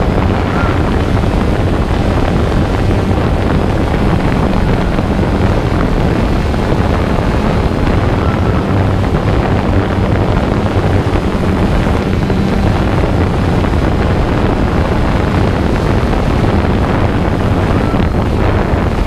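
Small camera drone's propellers and motors buzzing steadily at close range, with a rushing noise of air on the microphone.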